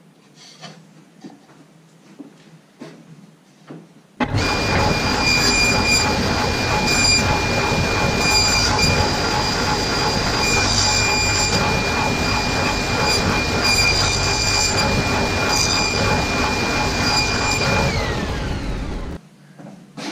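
Table saw running with a steady high whine while a square of MDF is fed into the blade. Near the end the whine falls in pitch as the saw is switched off and slows. Before it, a few faint taps and rustles of handling.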